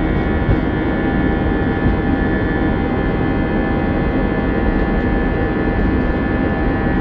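Airbus A320 jet engines and airflow heard inside the passenger cabin: a loud, steady noise with a set of constant engine tones running through it.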